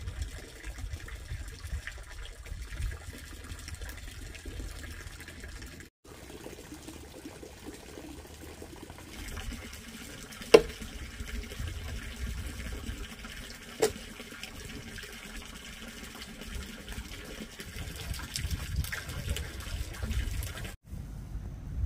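Water running or splashing, with two sharp knocks about three seconds apart midway through.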